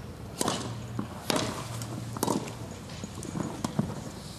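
Tennis rally: racket strings hitting the ball, with three crisp hits a little under a second apart starting with the serve, then a few fainter knocks.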